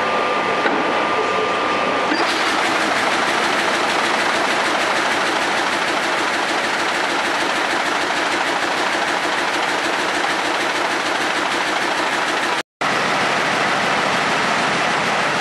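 Industrial weaving loom running at speed: a loud, steady, rapid mechanical clatter of the weaving cycle. A thin steady whistle sits over it for the first two seconds, and the sound breaks off for a moment near the end.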